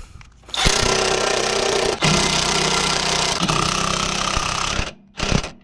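Power driver running fasteners in with long loaded runs and a short burst near the end; the fasteners go in hard.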